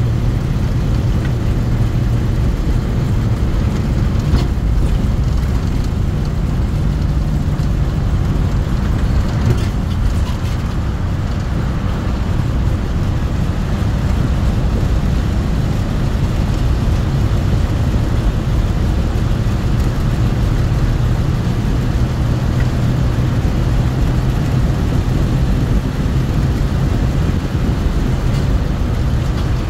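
A moving car's engine and tyre noise: a steady low drone over an even road rumble.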